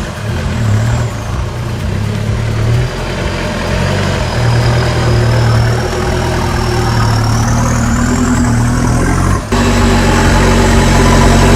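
RC4WD Trail Finder 2 scale truck with a Hilux body driving: a steady low engine-like drone with a thin high motor whine that rises in pitch a couple of seconds before a sudden break about three-quarters of the way through, after which the drone continues steadily.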